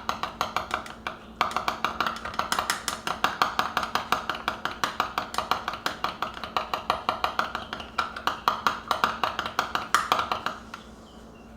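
Stirring a cup of espresso with chocolate: the stirrer clicks rapidly and evenly against the sides of the cup, about seven times a second, with a brief pause about a second in, and stops near the end.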